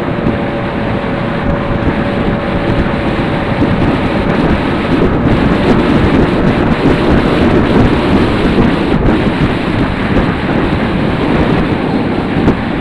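Wind rushing over a scooter rider's helmet-camera microphone while riding a Junak 806 scooter, a loud steady rumble that swells through the middle and covers the engine's note.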